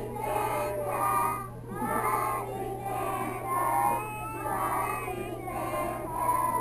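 A group of young children singing a song together, several voices holding drawn-out notes.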